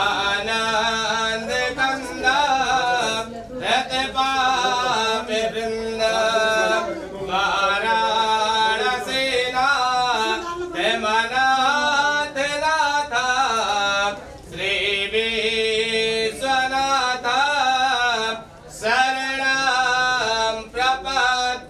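A man singing a Hindu devotional hymn in long, wavering melodic phrases, with short breaks for breath.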